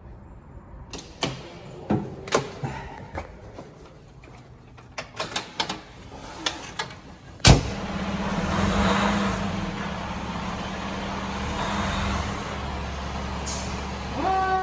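A series of clicks and knocks, then a fire engine's diesel engine starts with a sharp bang about halfway through and runs at a steady idle. Near the end a rising tone sets in over the engine.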